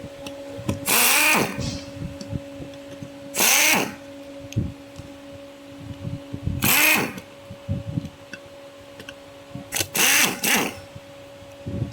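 Electric screwdriver run in four short bursts, its motor whirring up in pitch each time, during disassembly of the smoke gun for a motherboard swap. A steady low hum runs underneath.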